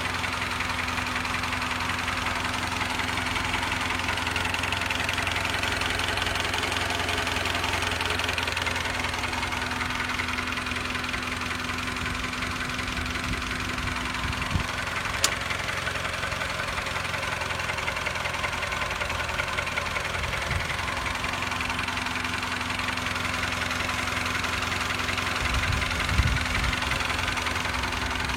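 An engine running steadily, with a single sharp click about halfway through.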